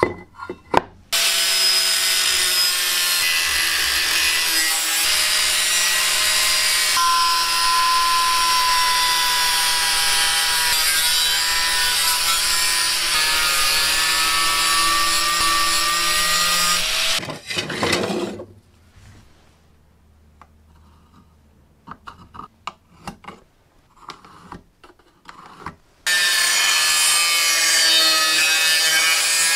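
Angle grinder with a thin cutting disc cutting through aluminium sheet: a loud, steady screech of the disc in the metal for about sixteen seconds, then it stops. A few light knocks of handling follow, and the cut starts again near the end.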